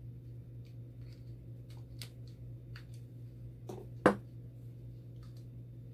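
Pliers and small dialysis-machine fittings being handled on a workbench: a few light clicks and taps, then one sharp knock about four seconds in, over a steady low hum.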